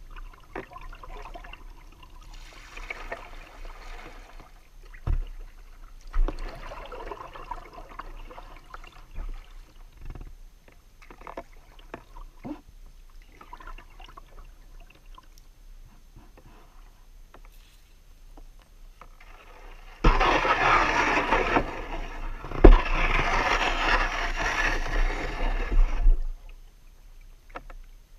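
Paddling a kayak: soft swishes of paddle strokes and water running along the hull, with a few light knocks. About twenty seconds in, a much louder rush of splashing water lasts about six seconds, with one sharp knock in the middle of it.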